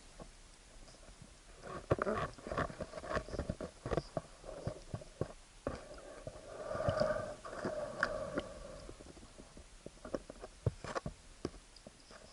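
Muffled sounds picked up underwater through an action camera's waterproof housing: many scattered clicks and knocks, with rumbling bursts about two and seven seconds in.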